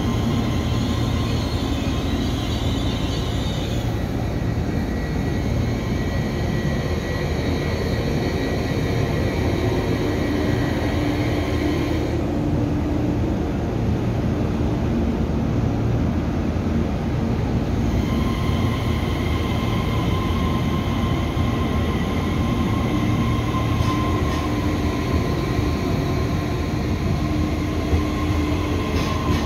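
Taiwan Railways EMU3000 electric multiple unit rolling slowly past, with wheel-on-rail rumble and a steady electric whine from its Hitachi SiC-VVVF traction equipment. The higher whine drops away for several seconds midway, then returns.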